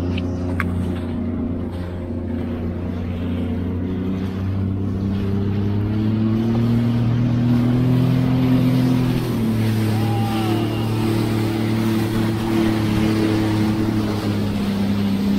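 Jet ski engine running at low speed, its pitch climbing slowly and then dropping back about nine seconds in, with water and wind noise beneath.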